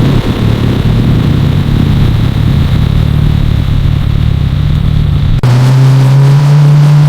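The 1981 Chevrolet Corvette's V8 engine running: rough and uneven for about five seconds, then an abrupt switch to a steady, smoother engine note.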